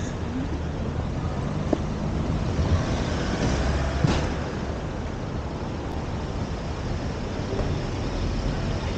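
City street traffic: motor vehicles running and passing, with a brief hiss about four seconds in.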